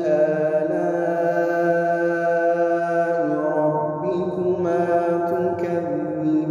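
A man reciting the Quran in the melodic tajweed style, drawing the words out into long held notes that step up and down in pitch several times.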